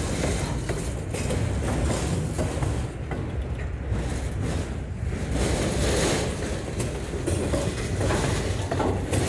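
Freight cars of a Norfolk Southern salt train, covered hoppers among them, rolling past close by: steady wheel-on-rail noise with occasional clicks.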